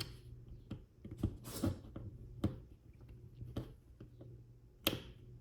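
Small plastic parts of a snap-together toy car being handled and fitted together: scattered light clicks and taps at irregular intervals, with a sharper click near the end.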